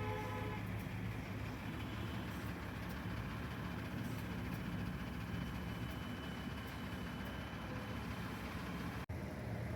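Bus engine idling with a steady low hum. A vehicle horn sounding into the first half-second stops there.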